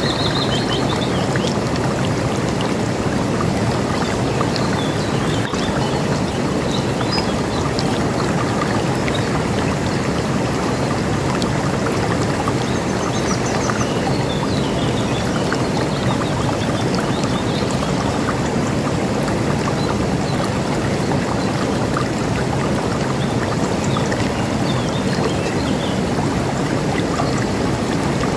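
River water rushing steadily over rocks, with faint, scattered bird chirps above it.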